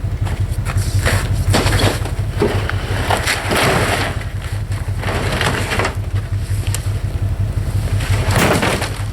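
A vehicle engine running with a steady low hum, while repeated short noisy rattles and scrapes come and go over it.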